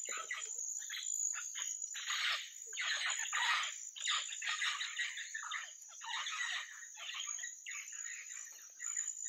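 A bird calling in a long run of short, harsh notes, over the steady high drone of insects.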